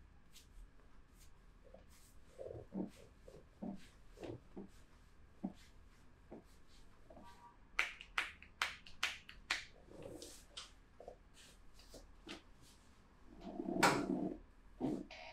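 Irregular handling sounds: soft taps and light thumps, a quick run of sharper clicks about eight seconds in, and a louder rubbing thump near the end.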